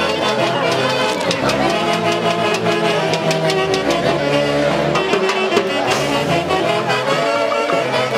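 Live Andean huayno played by a brass-and-saxophone orchestra with drums: horns holding the melody over a steady dance beat.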